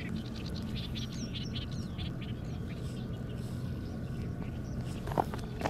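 Small birds chirping repeatedly over a steady low outdoor rumble, with a short louder sound near the end.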